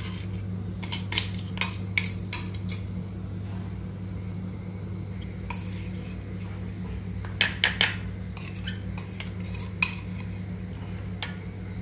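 Spoon and kitchen dishes clinking and knocking while a fish masala mix is handled in a bowl. Scattered sharp clinks come with a quick cluster of them about seven and a half seconds in, over a steady low hum.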